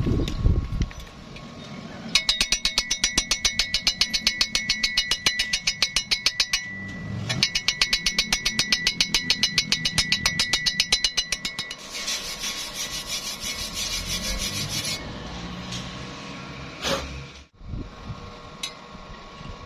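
A hand tool rasping on metal in fast, even strokes, with a ringing metal tone. There are two runs of about four seconds each, then a steadier hiss for about three seconds and a few single clicks near the end.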